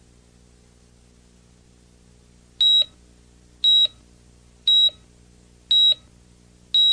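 Five short, high-pitched electronic beeps, evenly spaced about one a second, beginning a little over two seconds in, over a faint low hum.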